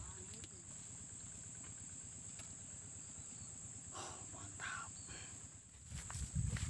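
Insects buzzing steadily in one high, even tone, with a few low thumps near the end.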